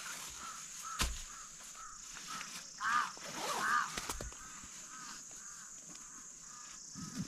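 Outdoor bird calls: soft chirps repeating about three times a second, with two louder, harsher calls about three seconds in, over a steady high hiss. A few sharp knocks from a backpack being handled, about one second and four seconds in.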